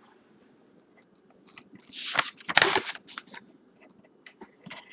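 Paper pages of a drawing binder being turned and handled: two loud rustles about two seconds in, then light crinkles and taps.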